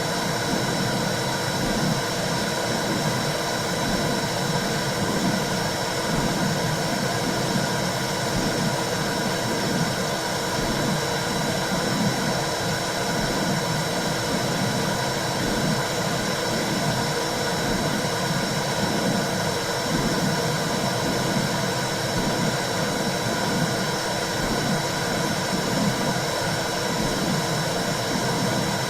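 Womb sound for soothing a baby: a steady whooshing noise with low, rhythmic pulsing swells.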